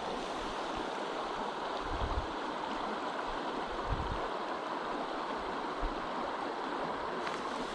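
Shallow trout stream running, a steady rush of water.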